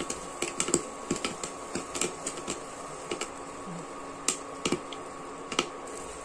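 Popcorn kernels popping in butter in a pan covered with a glass lid: sharp, irregular pops, frequent at first and thinning to a few scattered ones in the second half as the popping nears its end.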